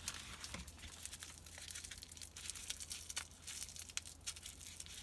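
Packaging crinkling and rustling as it is handled, a run of many small, quick crackles.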